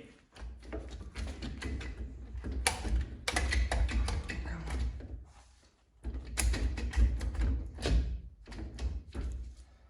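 Irregular metallic clicks, clanks and knocks of tools and parts as a part is worked loose from a Yamaha R6 engine being disassembled, with a low handling rumble. The noises come in two spells with a short pause a little after halfway.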